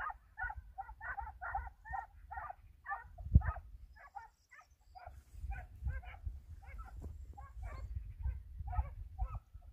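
Hunting hounds giving tongue: quick, repeated baying yelps, about two to three a second and overlapping, the cry of hounds working a hare's scent. Underneath is a low rumble, with one loud thump a little over three seconds in.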